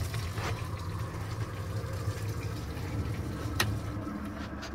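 Raw water running from the pump into a boat's forward live well: a steady rush of filling water with a low hum under it. There is one sharp click about three and a half seconds in.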